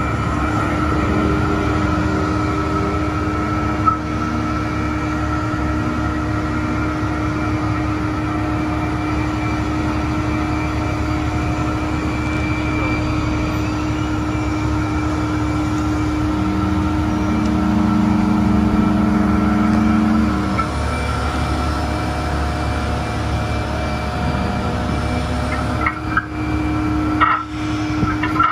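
Seagrave Aerialscope tower ladder's engine running at high idle to drive the hydraulics while the boom and bucket are raised, with a steady hum throughout. The sound grows louder for a few seconds a little past the middle, and a few knocks come near the end.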